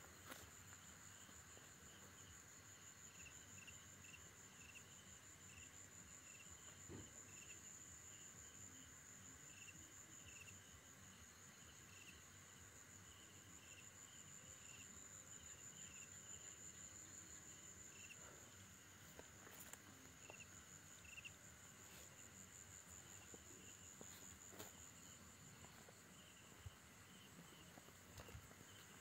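Faint night insects: a steady, high-pitched cricket trill with a second, lower pulsing chirp that is strongest in the first half. A few soft clicks break in here and there.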